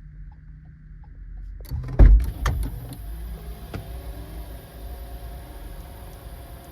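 Subaru Outback power liftgate operating: a loud clunk with a few sharp clicks about two seconds in, then the gate's electric motor running steadily with a high whine.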